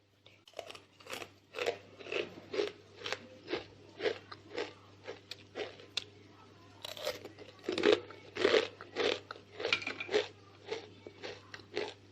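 Crisp, deep-fried achu murukku (rice-flour rose cookie) being bitten and chewed: a run of sharp crunches about twice a second, louder in the middle stretch.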